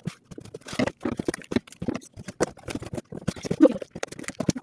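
Cardboard shipping box being cut open with scissors, making a dense, irregular run of snips, scratches and cardboard rustles.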